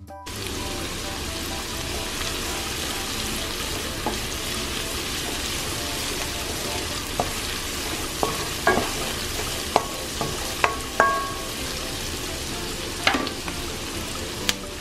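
Chopped onion and garlic sizzling steadily in olive oil in a pan, the onion softening to translucent. A wooden spatula stirs and knocks against the pan with sharp clicks, mostly in the second half.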